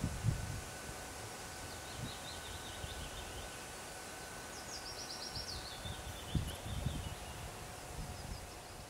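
Rural outdoor ambience: a small songbird sings two short trills, the second falling in pitch, over low gusts of wind buffeting the microphone. A faint steady high tone stops about six seconds in.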